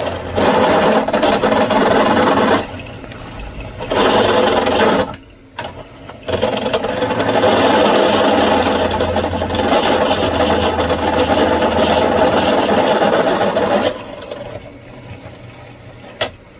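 Power tool working a metal exhaust plate, running in three goes: two short runs, then a long one of about seven seconds that stops a couple of seconds before the end.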